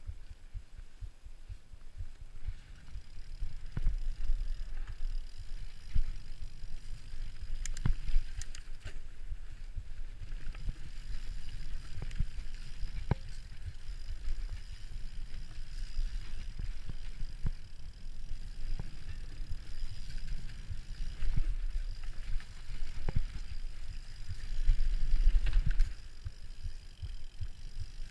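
Mountain bike ridden fast down a dirt trail: a steady low rumble of tyres and wind on the microphone, broken by frequent sharp clatters and knocks as the bike goes over bumps. It grows louder a few seconds before the end.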